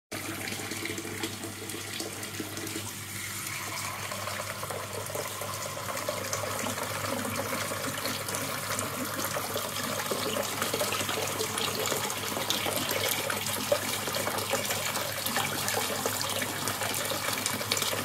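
Kitchen mixer tap running at full flow, the hot water splashing into a sink. A few seconds in, a flow-rate measuring cup is put under the stream and the water pours through its slot. This is the hot water flow being measured after the combi boiler's flow regulator and venturi were replaced.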